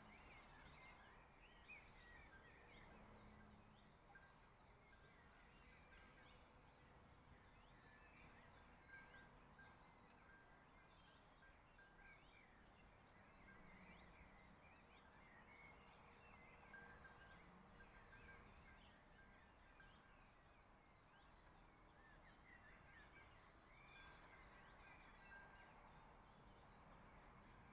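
Faint birds chirping and singing, short scattered calls throughout, over a quiet rural background hush.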